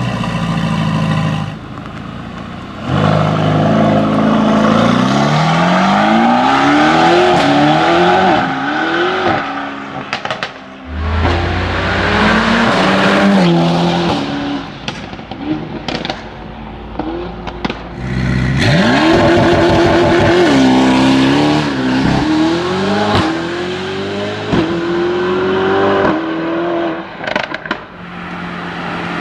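Decat (catless) Mercedes-AMG GT Black Series's twin-turbo flat-plane-crank V8 accelerating hard through the gears twice, its pitch climbing and falling back at each upshift. Between the runs it makes exhaust cracks and pops on the downshifts, a raw, throaty V8 sound.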